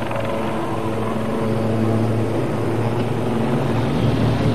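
Helicopter in display flight: steady rotor and turbine engine noise, growing louder after about a second and a half.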